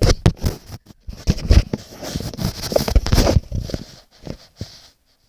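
Handling noise: a camera phone being moved and rubbed against fabric, with rustling and a string of irregular knocks and bumps on the microphone that thin out near the end.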